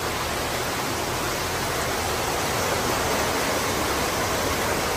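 Heavy rain pouring down steadily, a constant even rush of noise.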